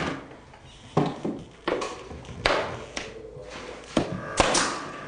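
A pneumatic brad nailer firing nails into wooden moulding: several sharp shots at uneven intervals, some followed by a short hiss of air.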